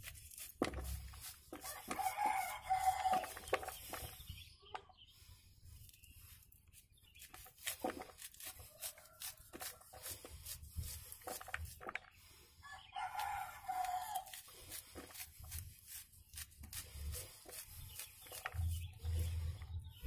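A kitchen knife slicing kernels off a corn cob, with many short crisp cutting clicks as the blade works down the cob. A rooster crows twice, once about two seconds in and again near the middle, louder than the cutting.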